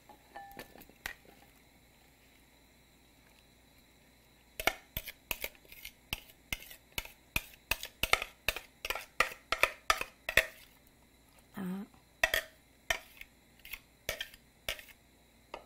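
A spoon clinking and scraping against glass bowls in quick, irregular strokes as a wet pickled eggplant mixture is scooped from one bowl into another. The first few seconds are nearly quiet, then the clinks come several a second.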